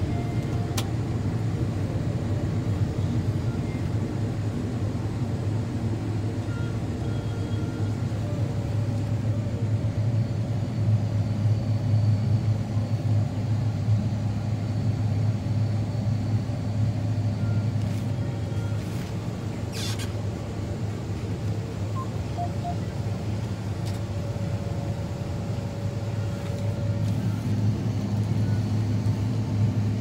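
John Deere S780 combine running, heard from inside its cab: a steady low drone from the engine and threshing machinery. A brief sharp click about two-thirds of the way through.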